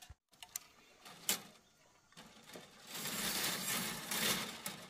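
Thin metal wire being twisted tight around a bundle of bamboo poles, giving a few sharp metallic clicks, then about a second and a half of scraping and rustling near the end.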